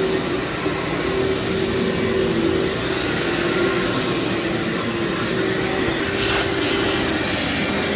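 Vacuum cleaner running steadily over a heavily soiled carpet, its motor holding one hum while dry grit crunches and crackles up through the nozzle, with a burst of crackling about six seconds in.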